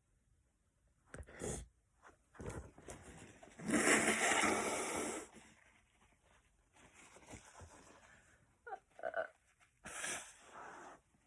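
A girl sneezing: short breathy intakes, then one loud sneeze about four seconds in, followed by softer breaths and sniffs.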